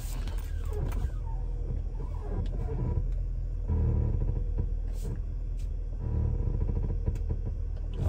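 Car cabin while driving: a steady low road-and-engine rumble with a faint steady hum and a few light clicks. Somewhere in this is a noise from the front of the car that the driver can't identify.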